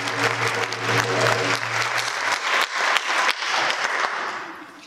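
Audience applauding, a dense patter of clapping with a low steady hum beneath it for the first two seconds, dying away near the end.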